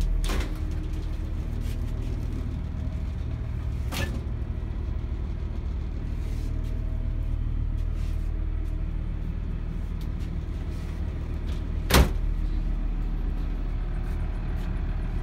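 A steady low engine drone runs throughout, heard from inside the motorhome. Three sharp knocks cut across it: one at the start, one about four seconds in, and a louder one about twelve seconds in.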